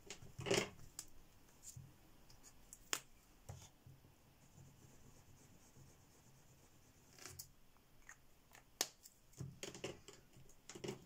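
Sharp plastic clicks and taps from handling gel crayons in their capped tubes: lids coming off and on, crayons picked up and set down. Between them is the faint rub of a gel crayon on paper as a swatch is laid down.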